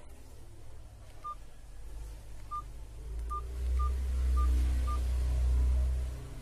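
Keypad tones from a Nokia TA-1034 feature phone as its keys are pressed: six short beeps of one pitch, spaced unevenly. A low hum runs underneath and swells in the second half.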